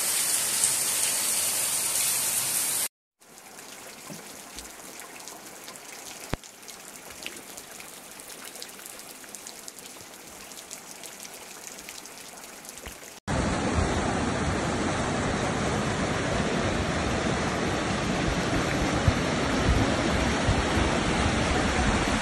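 Heavy rain, in three spliced stretches: a loud steady downpour, a sudden cut about three seconds in to a much quieter patter with scattered drops, then a loud steady rush of rain and water from about thirteen seconds in.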